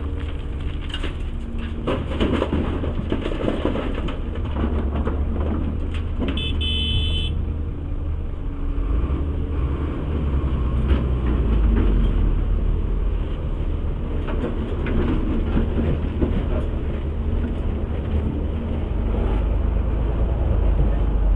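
Heavy diesel engine of a CAT 336 excavator running under load, a steady deep rumble, with rock and dirt clattering for a couple of seconds near the start. A brief high beep sounds about seven seconds in.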